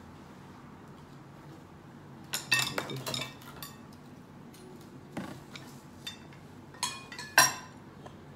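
Cutlery clinking against plates and bowls on a dining table. There is a quick run of clinks about two and a half to three seconds in, then scattered single clinks, with the sharpest one near the end.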